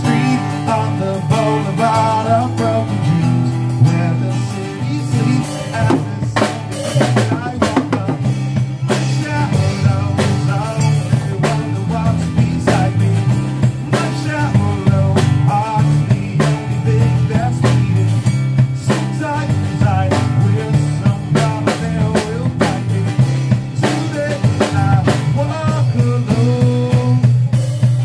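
Band music in a blues-rock vein: a drum kit beating steadily over bass notes and a melodic guitar line.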